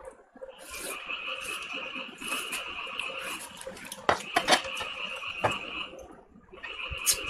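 Fingers scraping and mixing food on a ceramic plate, with a few sharp clinks of the plate about four to five and a half seconds in. Behind it runs a steady high chorus of calling animals that stops briefly around six seconds.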